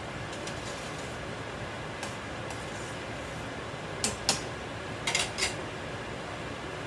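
Metal ladle clinking against the rim and sides of a stainless steel soup pot while stirring: a couple of faint taps early on, then two sharp clinks about four seconds in and three more about a second later.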